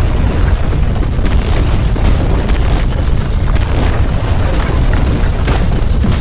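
Earthquake rumble: a loud, continuous deep rumble with scattered crashes and knocks, like things shaking and falling.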